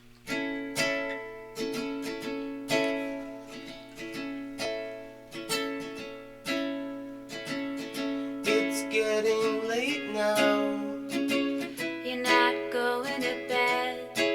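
Instrumental intro of a song: an acoustic plucked-string instrument playing chords about once a second, with gliding, bending notes in the second half.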